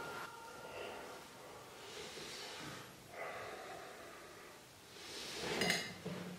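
A man crying, with heavy, sniffling breaths; the loudest breath comes near the end.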